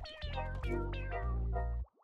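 Background music with a wavering melody over steady low bass notes, stopping abruptly just before the end.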